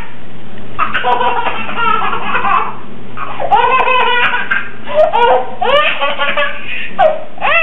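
A baby laughing in repeated high-pitched peals, with short breaks between them.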